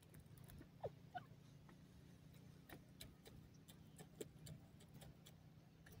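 Faint, irregular ticks of a grey francolin pecking in dry sandy soil, against near silence. About a second in there are two short, soft falling notes.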